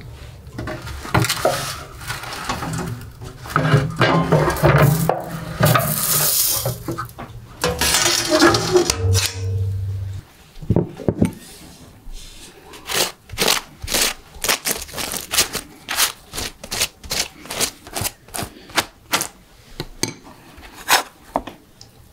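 Kitchen handling sounds: a metal baking tray and utensils clattering and scraping, then a long run of quick, sharp knocks, about two or three a second.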